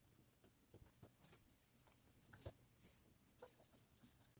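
Faint scattered clicks and scratches of fingers and fingernails working at a laptop's battery cable connector, prying the plug loose from the motherboard socket.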